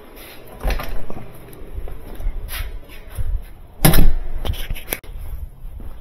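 A door being opened and shut, with a few knocks and thumps; the loudest thump comes about four seconds in.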